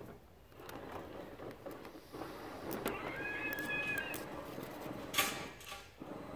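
Plastic zip ties rustling against the coils of a GM door hinge spring as they are threaded through by hand, with one sharp click about five seconds in. About three seconds in, a high, pitched, cat-like call lasts about a second.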